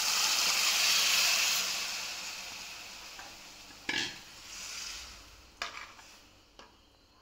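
Boiled chickpeas and their cooking water poured into hot oily masala in a metal kadhai, setting off a loud sizzle that fades away over a few seconds. A utensil knocks against the pan about four seconds in, followed by a few lighter clicks as the mixture is stirred.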